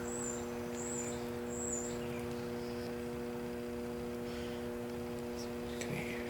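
A steady electrical-sounding hum of a few even tones, with faint high bird chirps in the first two seconds and a few light clicks later on.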